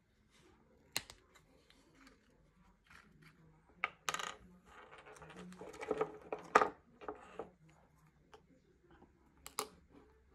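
Hands handling small tools and a glue bottle on a wooden workbench: sharp clicks of small hard objects set down on the wood, one about a second in, a cluster with rustling between about four and seven and a half seconds that is loudest near the middle, and another click near the end.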